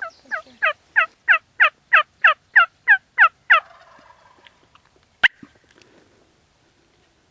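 A run of about a dozen turkey yelps, about three a second, each note dropping sharply in pitch and the series growing louder before it stops. A single sharp snap follows about five seconds in.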